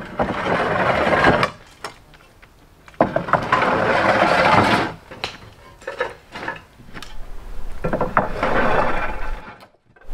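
Clay roof tiles sliding down a wooden plank chute in three long scraping, rattling runs, with sharp clinks and knocks of tiles being handled in between.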